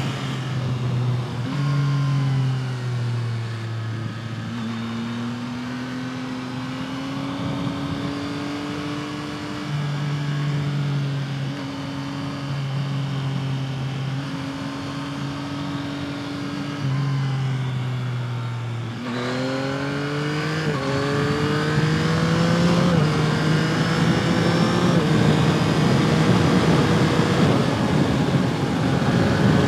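Yamaha MT-09's three-cylinder engine through a modified stock exhaust, running at part throttle with the revs shifting up and down. About two-thirds of the way in it accelerates hard, the revs rising in steps with an upshift about every two seconds and the wind noise building.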